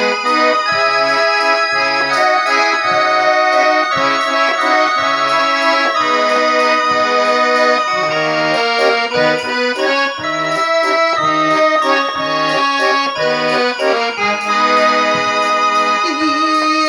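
Garmon (Russian button accordion) playing an instrumental introduction: a sustained reedy melody over short bass notes and chords in a steady rhythm.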